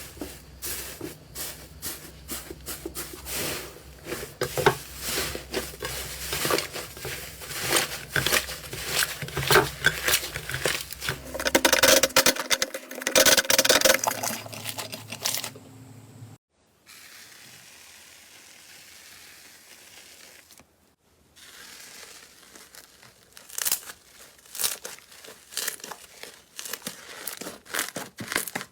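Slime being squeezed and worked by hand, making dense crackling and popping. It drops to a quiet hiss about sixteen seconds in, then the crackling starts again a few seconds later.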